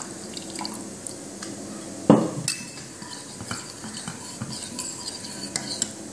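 Steel ladle stirring tamarind water into cooked toor dal in a stainless steel pressure cooker, scraping and knocking against the pot's sides, with one sharper clank about two seconds in.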